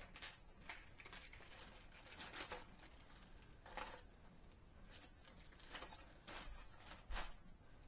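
Faint, scattered clicks and light rustling from a swimbait lure being handled, about half a dozen separate small clicks.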